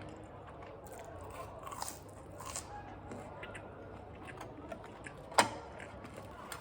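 Eating sounds: scattered short crunches and crackles of chewing food, with one sharp, loud click a little over five seconds in.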